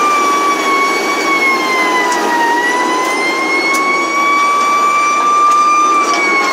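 Fire apparatus siren in a slow wail, its pitch falling for about two seconds, rising back, holding briefly and starting to fall again near the end. Heard from inside the cab over steady engine and road noise.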